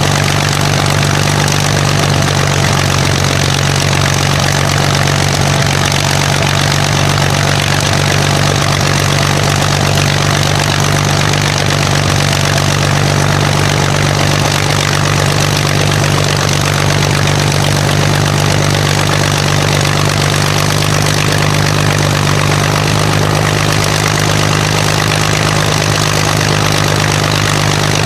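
Rolls-Royce Merlin liquid-cooled V12 aero engine running at a steady, unchanging speed.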